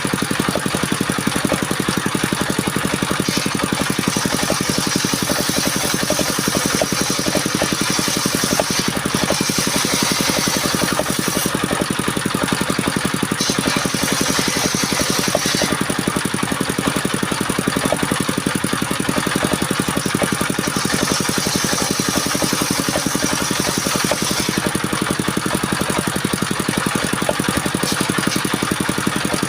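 Engine of a circular wood-sawing machine running steadily at constant speed, with a higher hiss coming and going about four times as the blade cuts sengon (albasia) wood.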